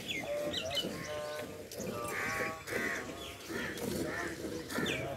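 Birds calling and chirping, with two louder harsh calls a little over two seconds in.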